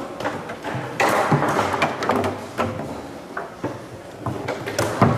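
Leonhart foosball table in play: irregular sharp knocks and clacks from the ball and plastic players being struck and rods being worked. The loudest knocks come about a second in and near the end.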